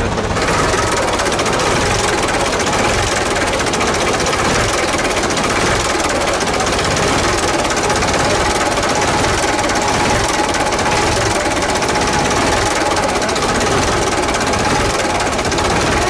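1961 Ebro B45 truck engine running steadily with the hood open.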